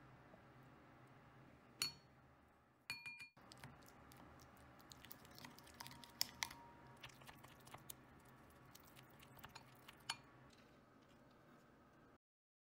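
Wooden spoon stirring and mashing soft sweet potato with soy milk and syrup in a ceramic bowl: irregular light clicks and scrapes of the spoon against the bowl, with one sharper tap about two seconds in.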